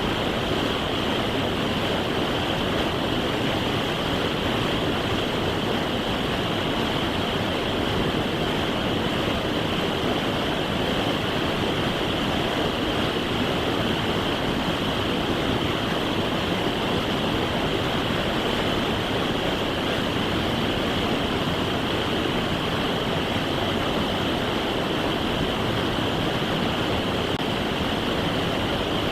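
Steady rush of fast-flowing creek water, an unbroken roar with no changes.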